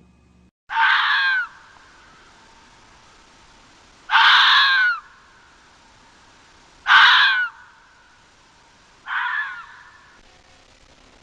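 An animal giving four harsh calls, each under a second long, spaced about two to three seconds apart.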